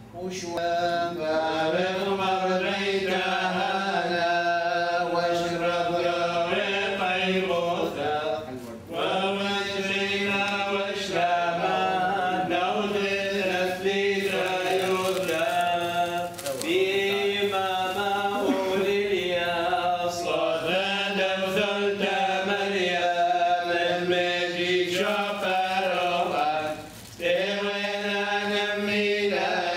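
Church liturgical chant sung in long phrases over a steady low drone, with short pauses between phrases.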